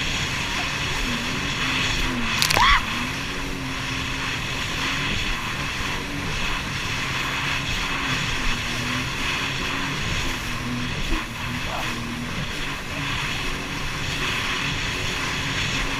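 Jet ski engine running steadily at speed, its pitch dipping and recovering a few times. There is a brief sharp noise about two and a half seconds in.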